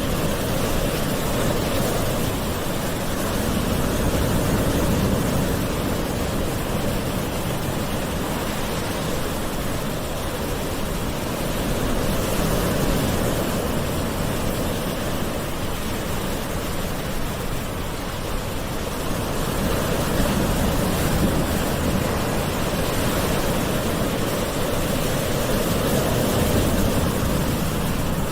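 Calm sea waves washing onto a shore: a continuous soft wash that swells gently and eases off again every seven or eight seconds.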